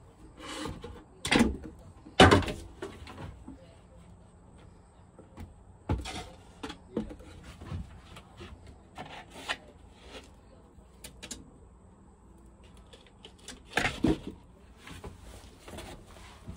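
Handling noises: irregular knocks, bumps and rustles as objects are picked up and moved about, the loudest knocks about one and two seconds in and another cluster near the end.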